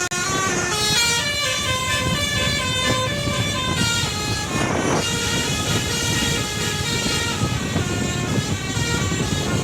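Basuri-type telolet horn on a Koswara Trans bus playing a winding, flute-like melody of quick stepped notes, with a short break about halfway through and a steady low rumble underneath.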